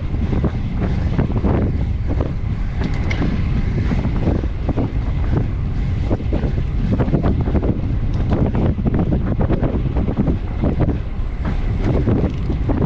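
Wind buffeting a bike-mounted camera's microphone while riding at speed: a steady loud low rumble with irregular gusts.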